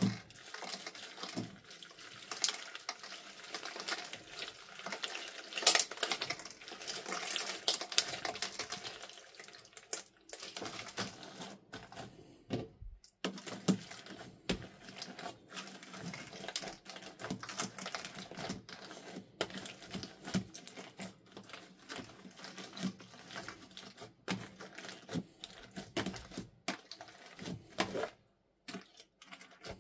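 Hands squeezing and kneading clear slime packed with small plastic straw pieces, giving a dense run of wet squelching and quick crackling clicks. The sound drops out briefly near the end.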